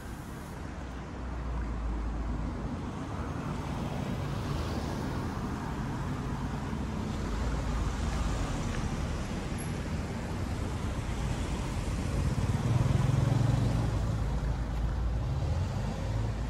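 Street traffic: vehicle engines running and passing, rising to its loudest as one passes close about thirteen seconds in.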